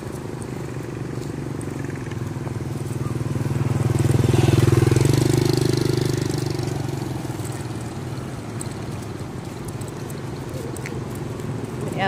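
A motor engine running steadily with a low hum, growing louder to a peak about five seconds in and then fading, as a vehicle passes by.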